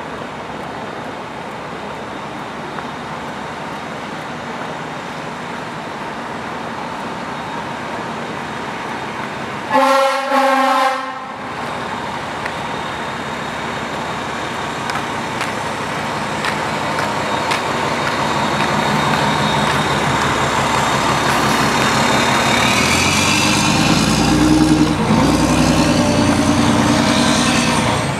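Fire engine's engine running as the truck approaches, growing steadily louder as it pulls up close. About ten seconds in, its horn sounds twice in quick succession.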